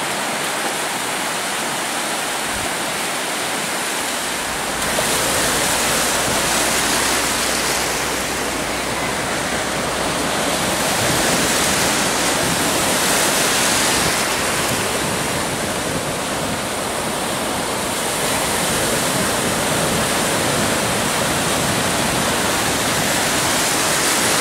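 Ocean surf breaking and rushing through shallow water: a steady wash of noise that swells and eases every few seconds as waves come in.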